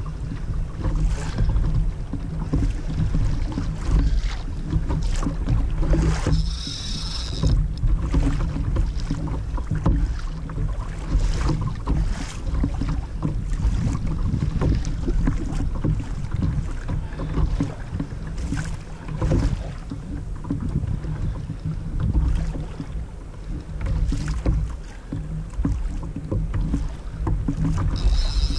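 Wind buffeting the camera microphone, with water slapping and knocking irregularly against the hull of a Hobie fishing kayak.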